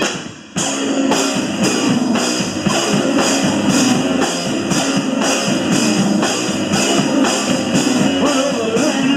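A live rock band playing. It drops out for a moment about half a second in, then the full band comes back in over a steady drum beat.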